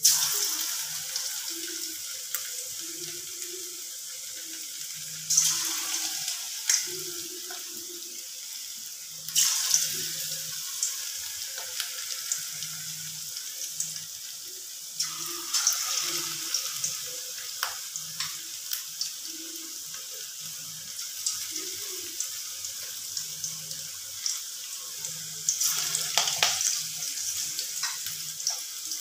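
Marinated chicken pieces deep-frying in hot oil in a kadai: a steady sizzling hiss with crackles. It surges louder about five times as more pieces are dropped into the oil.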